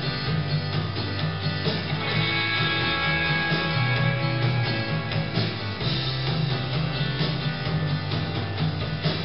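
Background music led by guitar, playing continuously.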